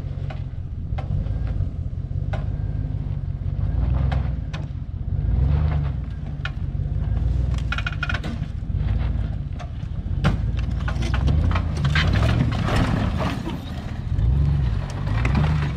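A vehicle engine running under load, its drone rising and falling several times, while many sharp cracks and snaps break out over it as the old truck is dragged through brush up a bank.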